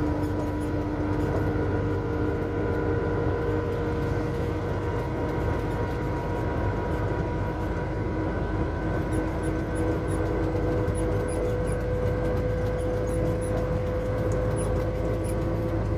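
Vehicle driving at a steady cruise, heard inside the cab: continuous engine drone and tyre-on-road noise with a steady hum whose pitch drifts slightly.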